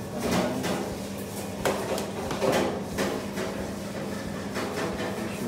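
Kitchen utensils and dishes clattering: several separate knocks and clinks, over a steady low hum.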